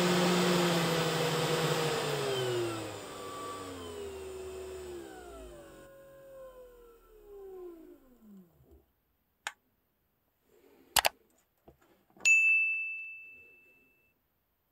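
500W air-cooled DC spindle motor running at full speed, then spinning down as its driver's speed knob is turned down, its whine sliding steadily lower in pitch and fading out over several seconds. After it stops come a few sharp clicks and a single bell ding that rings out, the sound of a subscribe-button animation.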